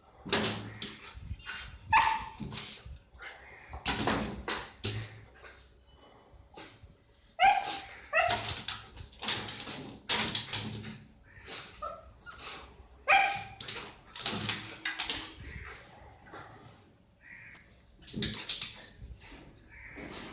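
A Kanni dog barking and yipping over and over in quick, irregular runs of short, sharp calls, with a brief lull about six seconds in: excited barking at a rat hiding in a washing machine.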